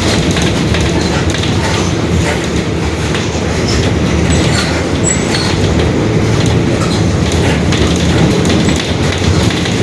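Mercedes-Benz OF-1721 Bluetec 5 city bus under way: steady engine and drivetrain running noise with the body rattling and clattering, a few brief high squeaks, and its differential growling.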